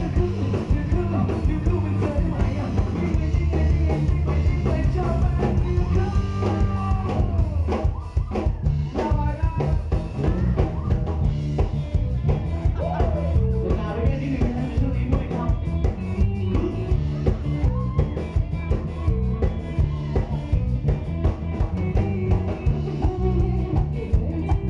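Live rock band playing: drum kit, bass guitar and electric guitar, with a singer over them and heavy low end. There is a short drop in loudness about eight seconds in.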